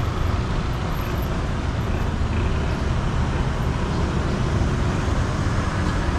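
Steady road traffic noise from vans, cars and motor scooters passing along the street, an even rumbling hum with no single event standing out.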